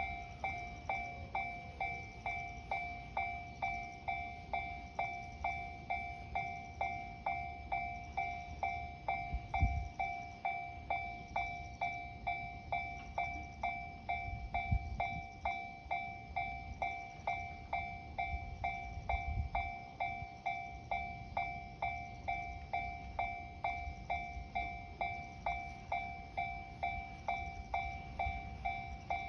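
Japanese railway level-crossing alarm ringing steadily, an even repeated electronic 'kan-kan' strike that warns a train is approaching. A few brief low thuds come through around the middle.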